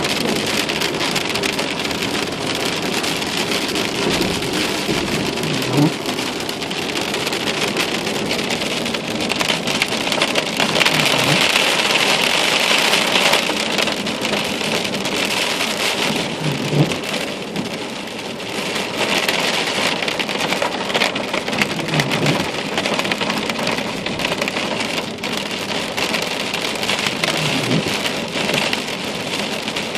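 Heavy rain falling steadily, with a short low plink from a drop about every five seconds.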